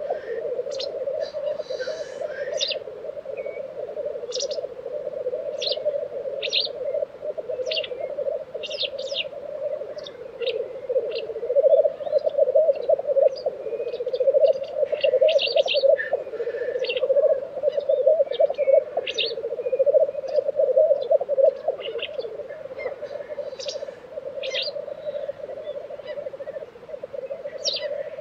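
Black grouse cocks lekking: an unbroken chorus of their rolling, bubbling coos, with many short high calls over it and a hiss now and then.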